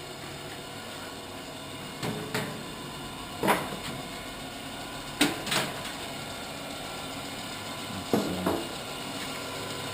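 G-P 1.5-inch centerless grinder running steadily with a hum, while something is handled nearby with several sharp knocks and clunks, mostly in pairs: four clusters, the loudest about three and a half and five seconds in.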